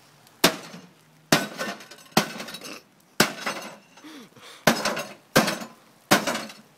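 An axe striking a microwave oven seven times, about a second apart, each blow a sharp crash followed by glass and broken parts clinking and rattling.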